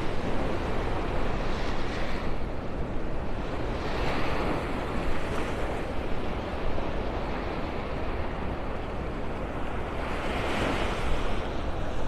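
Surf washing onto a sandy beach, the wash swelling and fading, loudest about two, four and ten seconds in. A steady low rumble of wind runs on the microphone beneath it.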